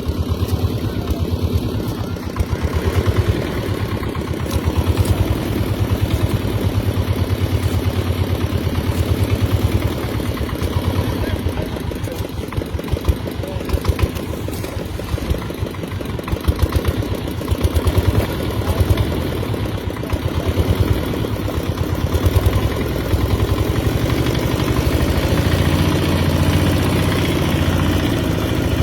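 An engine running steadily, its firing pulses close together and even.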